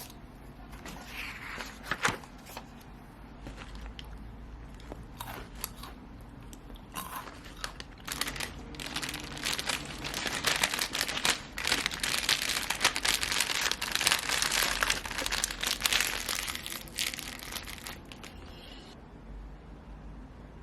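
Packaging being handled: scattered clicks and brief rustles at first, then a long stretch of steady crinkling and crumpling through the middle, fading near the end.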